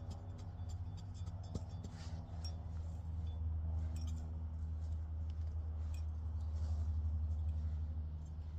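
Garden soil being sifted through by hand, with small scattered clicks and rustles of grit and bits of soil, over a steady low hum.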